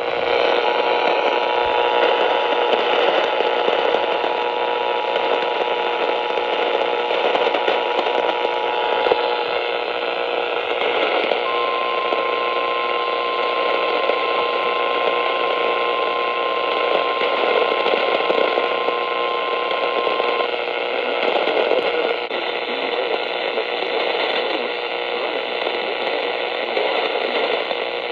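Weather radio receiver hissing with static throughout. Faint steady tones sound through the first nine seconds, and a single steady tone of about 1 kHz holds for about nine seconds in the middle.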